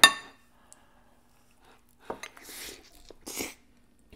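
A metal fork clinks once against a dish with a short ringing tone, followed about two seconds later by soft mouth sounds of eating.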